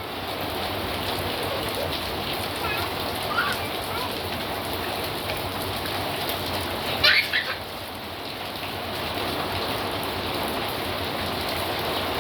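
Heavy rain pouring steadily, with a short high-pitched voice breaking through about seven seconds in.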